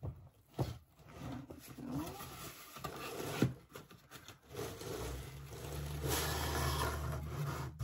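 Rubbing and scraping of tightly packed contents being worked out of a cardboard box, with a couple of light knocks and a longer steady stretch of rubbing near the end.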